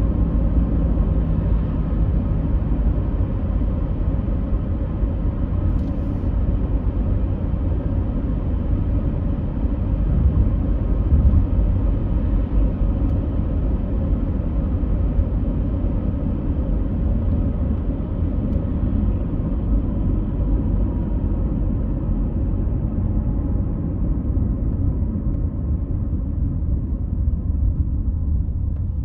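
Steady low rumbling noise, strongest in the deep bass, continuous and unchanging throughout.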